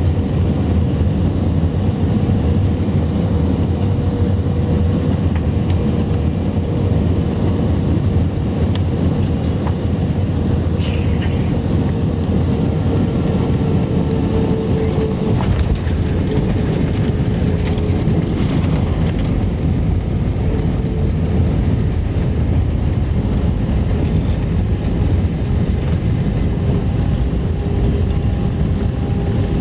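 Airbus A320 cabin noise heard over the wing: a steady rumble of the engines and rushing air through the final approach and the landing. A steady whine fades out about halfway, and the ground spoilers are raised on the runway rollout.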